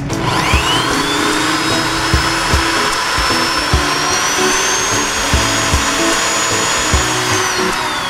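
Cordless drill motor spinning up just after the start, running at a steady high whine while drilling into a metal ignition lock cylinder, then winding down near the end.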